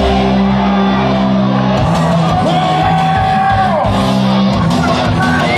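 Loud electronic dance music from a live DJ set over a club sound system: a steady heavy bass line that changes notes about two seconds in and again near the end, with a long held note in the middle that slides down. Crowd shouts and whoops come over the music.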